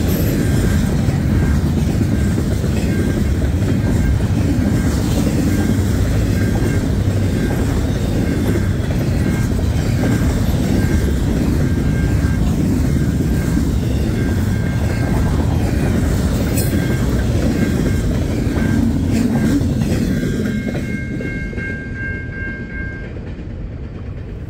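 Tail end of a long, fast intermodal freight train of double-stacked container well cars rolling past: a steady rumble of steel wheels on the rails that fades about 20 seconds in as the last car goes by. A grade-crossing warning bell rings in a regular beat throughout and stands out once the rumble dies down.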